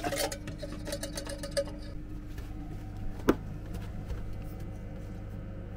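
Light clicks and clatter of kitchen utensils being handled, with one sharp knock a little over three seconds in, over a steady low hum.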